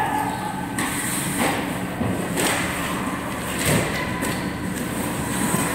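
Ice hockey play: skate blades scraping the ice and sticks and puck knocking, a sharp stroke every half second to a second, over a steady rink hum.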